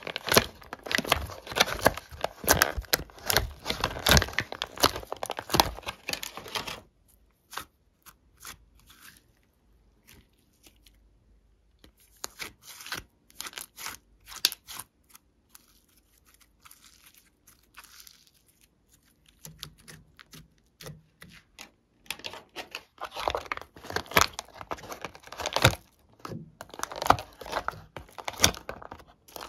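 Thin clear plastic blister tray crinkling and crackling as fingers press glitter slime pieces out of its pockets. The crackling is dense at first, thins to scattered clicks for a long stretch in the middle, then turns dense again near the end.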